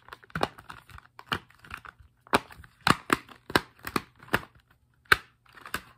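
Silicone dimples of a Planet Dimple (simple dimple) fidget toy being pressed in quick succession, each popping through with a sharp click, in an uneven run of many clicks with a short pause about four and a half seconds in. The dimples are very loose.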